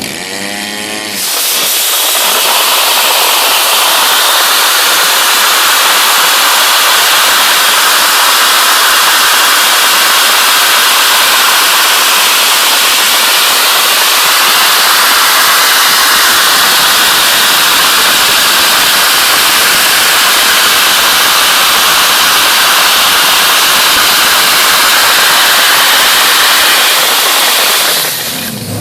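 Dry-ice blasting nozzle blasting wood with compressed air and crushed dry-ice crystals: a loud, steady hiss that starts abruptly about a second in and cuts off near the end.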